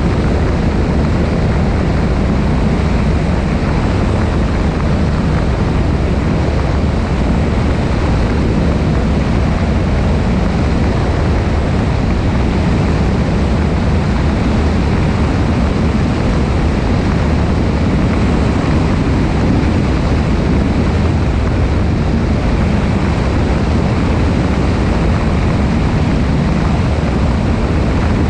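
Cessna 172 in flight: the steady drone of its engine and propeller mixed with wind rushing over a wing-mounted camera.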